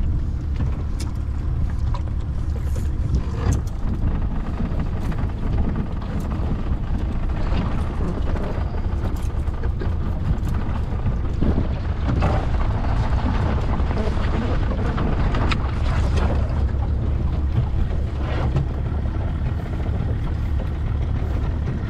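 Wind buffeting the microphone on an open boat, a steady low rumble over the noise of choppy river water, with a few faint clicks.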